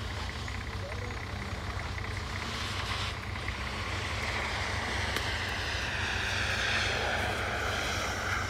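Off-road 4x4's engine revving hard as it climbs a snowy slope, heard from a distance over a steady low rumble; about halfway through the engine note grows louder and its pitch falls slightly.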